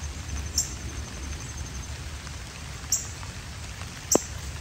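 Handling noise from shade cloth, zip ties and scissors: three short sharp clicks, the loudest just after four seconds in, over a steady low rumble. A faint high, evenly pulsing trill stops about two seconds in.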